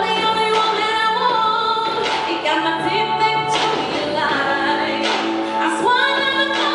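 Background music: a song with a woman singing over instrumental accompaniment.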